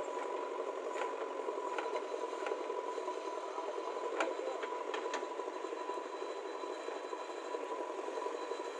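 JCB 3DX backhoe loader's diesel engine running steadily under work as the backhoe arm digs and swings soil into a tractor trolley. A few sharp knocks come through in the first half, the loudest about four seconds in.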